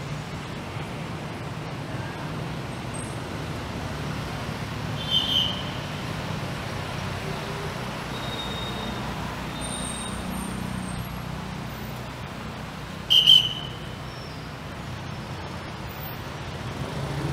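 Busy city street traffic: a steady low rumble of passing vehicles. Two brief, sharp high-pitched sounds stand out, about five and thirteen seconds in.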